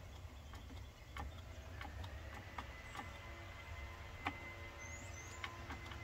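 Faint, repeated clicks of a Honda GoldWing GL1800's dash menu buttons being pressed, several presses at uneven intervals, over a low steady hum.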